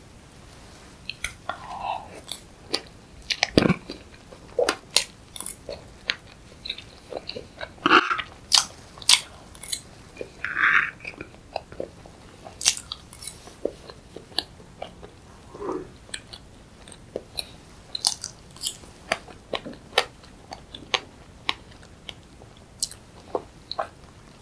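Close-miked eating: chewing and wet mouth and lip smacks with irregular sharp clicks as soft cream cake with fresh strawberries is eaten.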